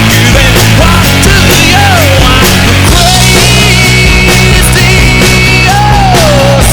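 Loud distorted rock music with a driving beat, heavy bass and a gliding vocal or lead-guitar line.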